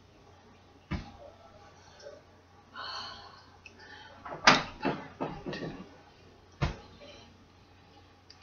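A series of sharp knocks and thumps: one about a second in, a quick cluster of four halfway through with the first the loudest, and a last one near the end, with a short breathy hiss in between.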